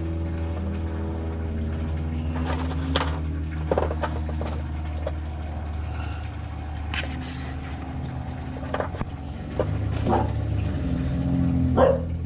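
A motor vehicle's engine drones steadily at low pitch, rising and falling slightly in pitch, while metal tools clink and knock against metal parts every few seconds, the loudest knock near the end.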